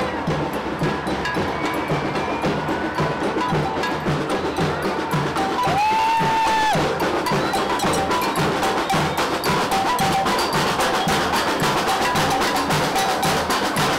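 Percussion music: a steady drum beat about twice a second under fast wood-block-like clicks that grow denser from about eight seconds in, with a brief held high tone a little past the middle.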